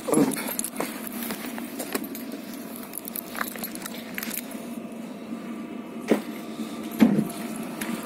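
Chinese-made diesel air heater running at full power, a steady drone, with a few knocks and rattles near the start and twice near the end.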